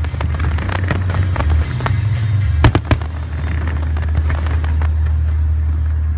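Aerial fireworks going off: a dense crackling of small reports with two louder bangs in quick succession about two and a half seconds in, over a steady low rumble.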